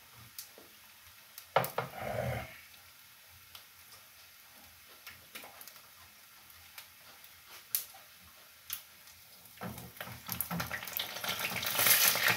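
Roasted meat sizzling and crackling in a frying pan on the stove, building up in the last couple of seconds as the pieces are moved and lifted. Before that it is quiet apart from scattered small clicks and one brief louder sound about two seconds in.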